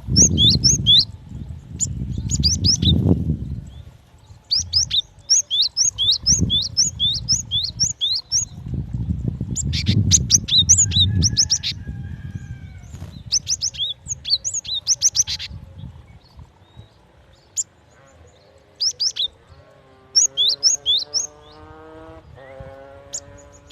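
Female cinereous tit (gelatik batu) calling: bouts of short, high chirps repeated in quick series, the call used to draw in males. A low rumble sits under the calls at the start and again around the middle, and a low hum that rises slowly in pitch comes in near the end.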